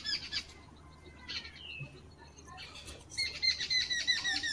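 An animal's chattering call: rapid runs of short high chirps, about seven a second, one bout fading out just after the start and another beginning about three seconds in, with a few faint single chirps between.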